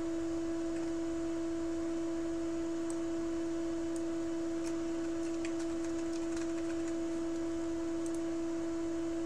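A steady, unwavering single-pitched tone with a fainter overtone above it, held without a break.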